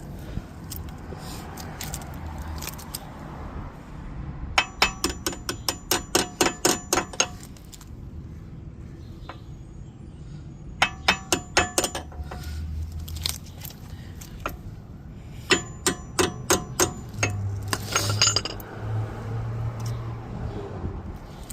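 A hammer tapping metal on the Jaguar XJ-S front brake caliper, driving a part into place in three runs of quick ringing strikes, about four to five a second.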